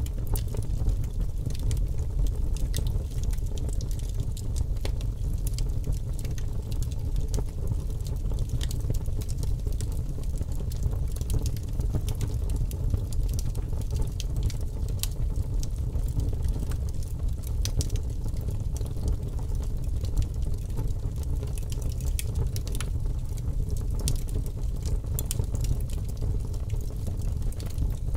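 Fire burning, with frequent sharp crackles and pops scattered irregularly over a steady low rumble.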